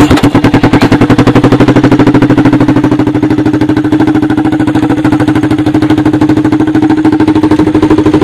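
1986 Honda TRX200SX ATV's single-cylinder four-stroke engine in a converted golf-cart UTV, catching at once and then idling steadily in neutral, loud, with fast even firing pulses.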